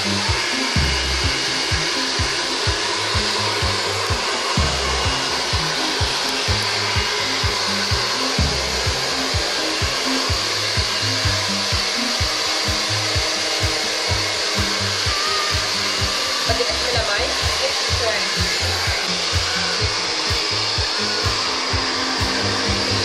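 Handheld hair dryer running steadily, blowing on the wet coat of a Yorkshire terrier puppy to dry it after a bath.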